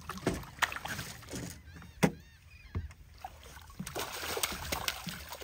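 Water splashing and sloshing as a hooked stingray thrashes at the surface, with many short sharp knocks and one louder hit about two seconds in.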